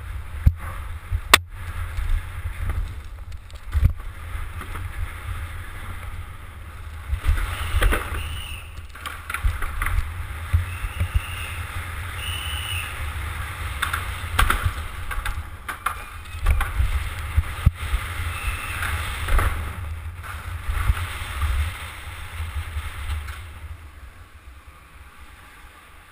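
Downhill mountain bike ridden fast over cobbles and ramps, heard from a camera mounted on its handlebars: wind rushing over the microphone, with frequent knocks and rattles from the bike. It quietens near the end as the bike slows.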